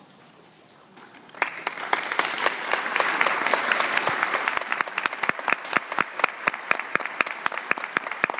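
Audience applauding, starting suddenly about a second and a half in, with many individual sharp claps heard through the steady clapping.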